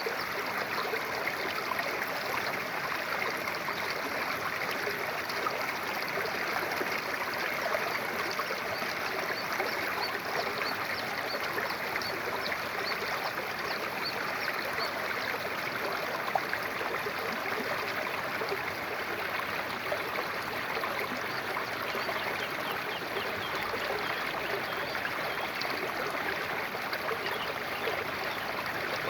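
Water running and babbling over stones in a small stream, a steady, even flow with fine trickling and splashing detail.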